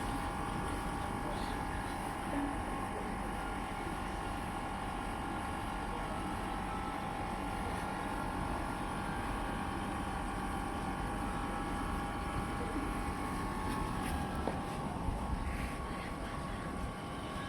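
Outdoor condensing unit of a split air conditioner running steadily: compressor hum and condenser fan noise with a constant tone, the unit starting and staying on now that the bad capacitor has been dealt with.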